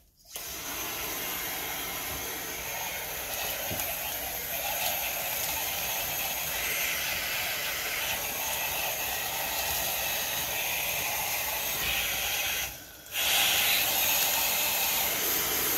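Davis pet washer sprayer with its snap-on foamer attachment spraying shampoo onto a wet dog's coat: a steady hiss of pressurised spray. The spray stops briefly about 13 seconds in, then starts again a little louder.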